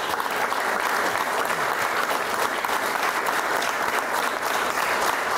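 Applause from a group of about a dozen people clapping, steady and even throughout.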